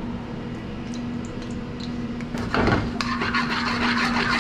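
Raw peanuts frying in hot peanut oil in a wok, sizzling over a steady hum. About two and a half seconds in, a metal slotted spoon scrapes and stirs them in the wok, and the sizzle grows louder after that.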